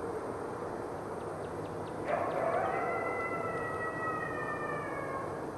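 Red wolf howling: one long howl begins suddenly about two seconds in and slides slowly down in pitch before fading near the end, over a steady background hiss.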